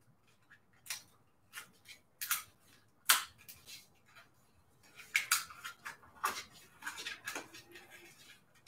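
Die-cut paper pieces being peeled off a sticky cutting mat with a thin spatula tool: a series of short, crisp crackles and rustles as the paper pulls away from the adhesive, which is sticky enough to tear the paper.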